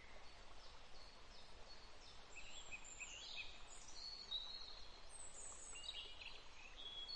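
Faint outdoor ambience: small birds chirping and trilling over a soft steady hiss, the calls growing busier from about two seconds in.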